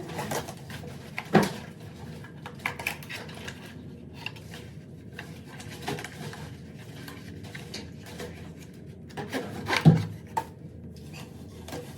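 Kitchenware being handled: scattered clicks and knocks, with two louder knocks, one a little over a second in and one near the end.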